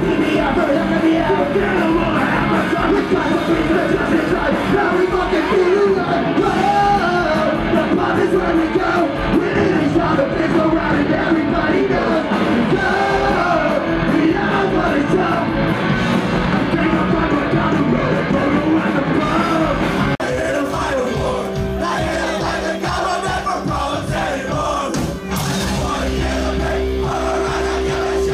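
Live punk rock band playing loud with shouted vocals, recorded from the crowd. About twenty seconds in, the busy playing gives way to long held, ringing notes.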